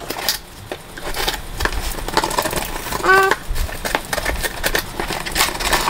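Cardboard shipping box being opened by hand: packing tape slit and pulled off, the cardboard flaps crackling and rustling in a dense run of small clicks. A brief vocal sound from the person about three seconds in.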